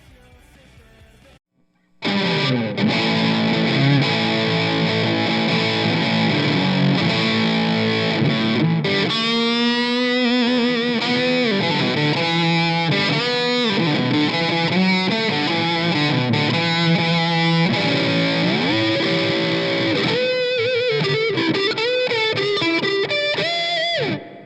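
Squier Classic Vibe Telecaster Custom electric guitar with Alnico V pickups, played through heavy distortion. Chords and riffs start about two seconds in, then lead lines with string bends and vibrato follow, and the playing stops just before the end.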